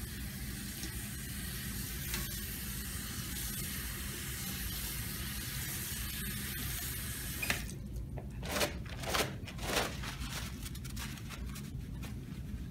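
Tap water running steadily into a stainless-steel sink over hands being scrubbed, shut off about seven seconds in. A few short, loud rasps of paper towels being pulled follow, then the softer rustle of hands being rubbed dry in paper towel.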